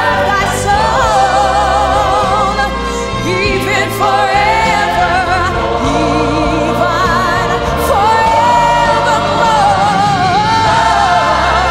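A woman singing a gospel solo with strong vibrato, holding long notes, over instrumental accompaniment with a steady bass.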